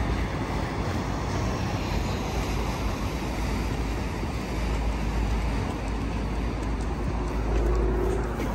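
Steady city road traffic passing on the bridge: a continuous rumble and hiss of engines and tyres.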